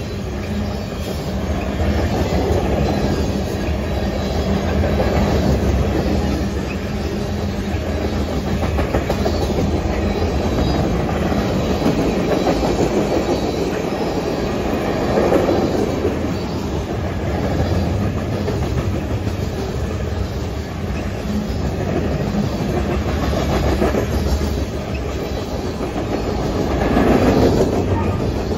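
Freight cars of a mixed freight train (boxcars, tank cars and covered hoppers) rolling past on straight track: steady wheel and rail noise, louder for a moment about halfway through and again near the end.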